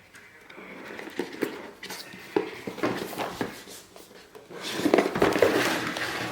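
A cardboard jigsaw puzzle box being handled and opened: light knocks and taps, then a louder stretch of rustling from about four and a half seconds in.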